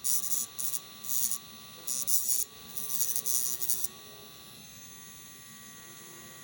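Dremel rotary tool with a cutting disc running with a steady whine. Several short bursts of high grinding hiss come in the first four seconds as the disc shapes the part.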